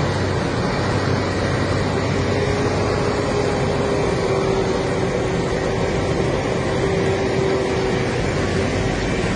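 Tractor engine running steadily under load while manure is dumped, with a steady whine joining about two seconds in and fading near the end.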